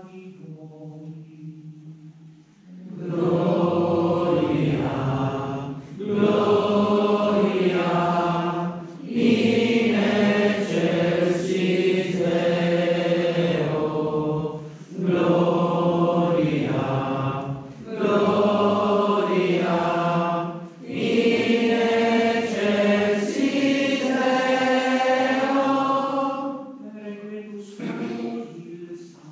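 Liturgical chant sung during Mass: after a quieter opening, voices sing in phrases of two to three seconds with short breaks for breath, then fall away near the end.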